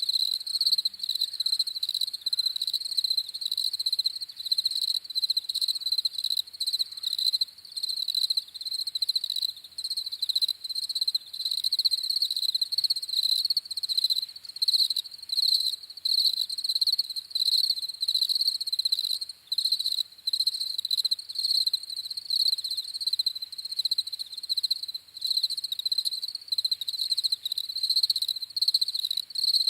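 Crickets chirping in a continuous fast pulsing trill, a high pitch near 4 kHz with a fainter overtone above.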